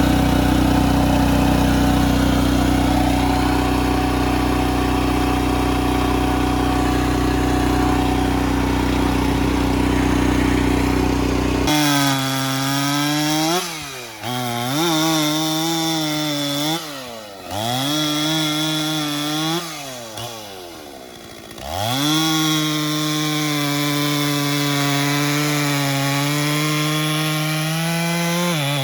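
Stihl 044 two-stroke chainsaw cutting through a log near full throttle. It holds a steady pitch at first; from about twelve seconds in, the revs repeatedly sag and recover as the chain bogs under load, dropping lower about twenty seconds in before climbing back to a steady high rev.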